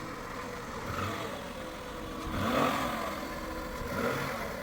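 A motor vehicle engine running steadily, swelling louder three times, most strongly around the middle.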